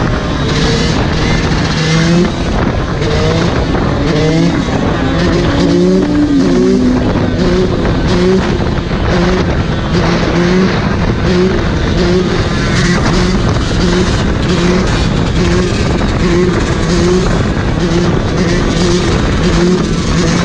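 Dirt bike engine running hard at speed, its note pulsing on and off in a regular rhythm a little more than once a second, under heavy wind buffeting on the microphone.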